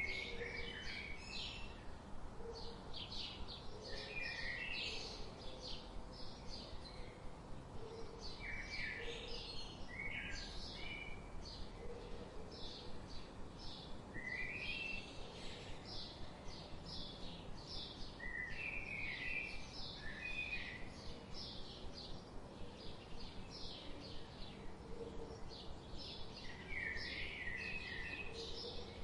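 Forest birds chirping: a steady, rhythmic run of short high chirps, several a second, with a lower, falling phrase breaking in every few seconds over a faint background hiss.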